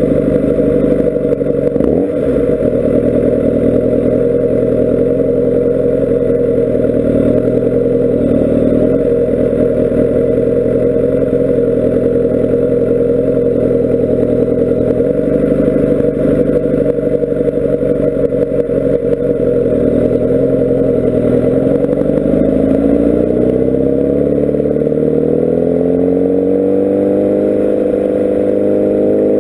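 Kawasaki Ninja ZX-10R SE's inline-four engine, muffled, heard from a camera mounted on the bike while it rides at fairly steady revs, with a short knock about two seconds in. Over the last several seconds the engine note rises steadily as the bike accelerates.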